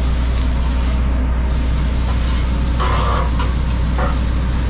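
Steady low mechanical hum of the food truck's running equipment. A few short metal scrapes of a spatula on the flat-top griddle come about three and four seconds in.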